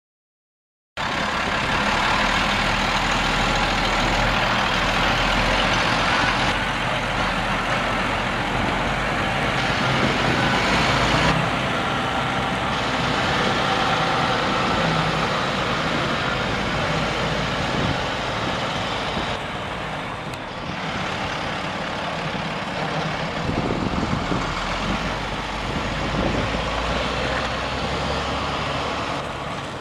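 The International DT466 7.6-litre diesel engine of a 2001 International 4700 box truck running steadily as the truck drives and turns slowly. It starts about a second in.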